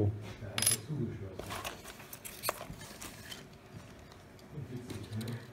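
Small handling noises as small metal parts are taken from a parcel and set down on a wooden table: a brief rustle about a second in and one sharp click midway, with faint voices in the background.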